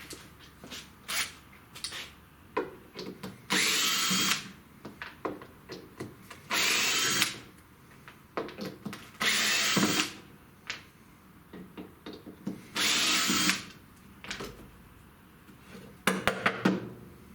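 A small power tool run in four short bursts of about a second each, with knocks and clicks between them and a quick cluster of clicks near the end.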